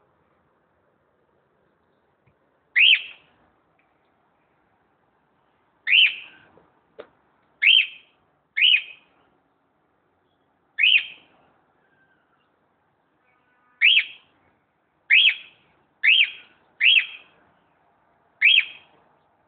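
Cockatiel calling: about ten short, loud, upward-sweeping whistled calls, spaced irregularly one to three seconds apart. A short click comes between calls about seven seconds in.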